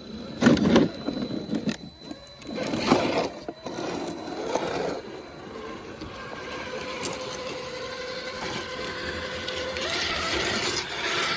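Electric motor of a 1/10-scale RC crawler whining steadily, its pitch creeping up near the end, after a few loud bursts of noise in the first five seconds.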